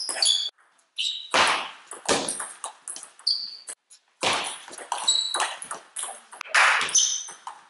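Table tennis ball knocking off bats and table in a rally, each hit ringing in a large hall, with short high squeaks of shoes on the hall floor.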